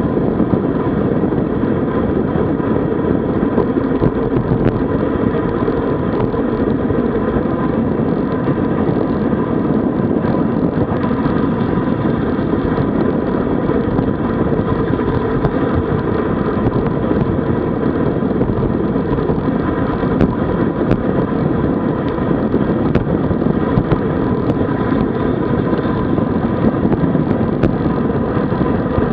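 Steady rushing wind and road noise on the microphone of a camera moving along with a road cycling group ride, with a faint steady whine mixed in.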